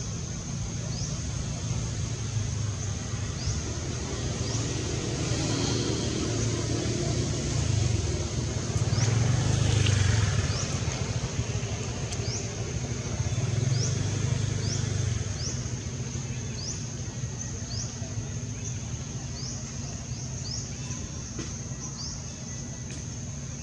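Outdoor ambience: a low rumble of motor traffic that swells twice, once about a third of the way in and again a little past halfway. Over it runs a steady high-pitched buzz with short rising chirps about once a second.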